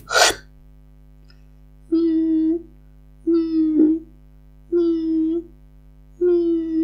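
Human beatbox siren: four short hummed notes, each held at a steady pitch for under a second, about a second and a half apart. Each is hummed high through the mouth and nose with the upper front teeth set on the lower lip, so the air buzzes between teeth and lip.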